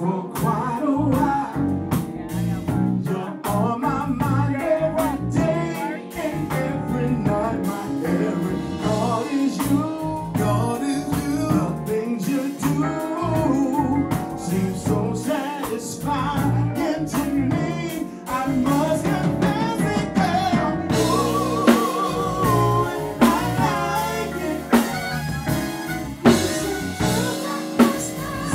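Live band playing with a male singer over electric guitar, drum kit and Korg Triton keyboard; the cymbals grow brighter about two-thirds of the way through.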